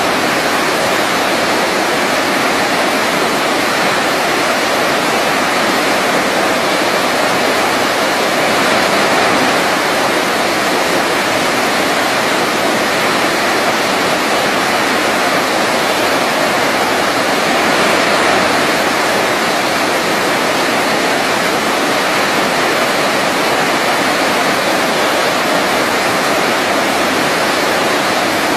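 Waterfall pouring steadily: an even, unbroken rush of falling water with no breaks or separate events.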